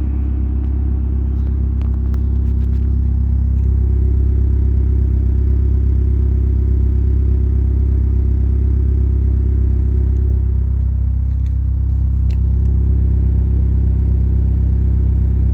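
Engine of a 2005 Chrysler PT Cruiser idling, a steady low rumble.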